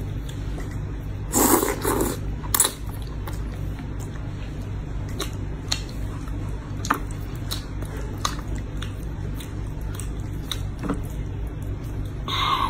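A person eating thick, saucy spicy rice noodles: short wet slurps about a second and a half in and again near the end, with soft chewing and small mouth or chopstick clicks between. A steady low hum lies under it all.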